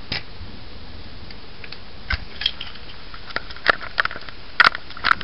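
Steady hiss of heavy rain, broken by irregular sharp clicks and taps. The clicks come more often and louder in the last two seconds.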